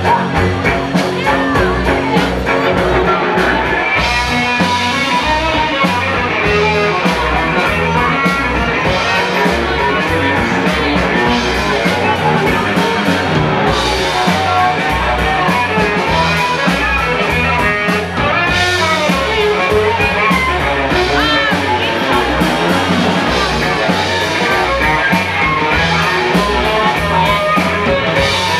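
Live rock band playing loud: drum kit, electric bass guitar and an electric cello, with a steady drum beat.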